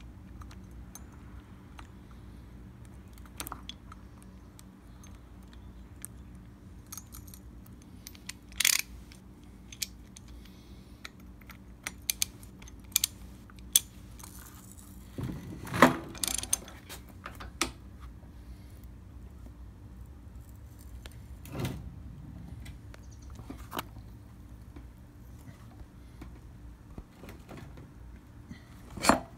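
Hand-tool work on a lawn edger's blade: a socket and ratchet and the steel blade clink and clatter in scattered sharp clicks, with a few louder metal knocks, the loudest about halfway through and just before the end. A faint steady hum runs underneath.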